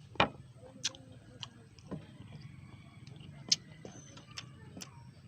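Close-miked eating sounds: irregular sharp clicks and smacks of a mouth chewing mango, the loudest just after the start and another about three and a half seconds in.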